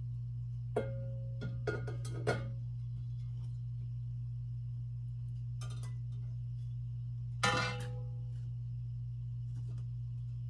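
Glass knocking and clinking with short ringing tones as a glass anode bottle in a wooden collar is lowered into a glass silver-cell beaker: a few light knocks about one to two seconds in, and a louder ringing clink about seven and a half seconds in. A steady low hum runs underneath.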